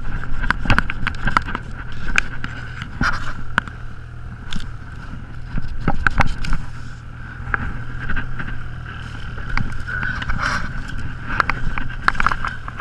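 Snowmobile engine running steadily, with many scattered knocks and clicks over it.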